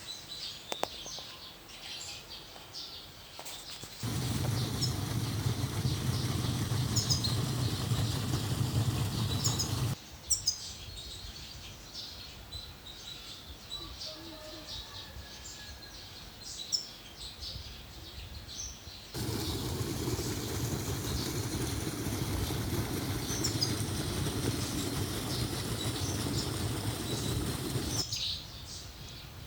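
Flowing stream water rushing in two long stretches that begin and end abruptly, with small birds chirping throughout.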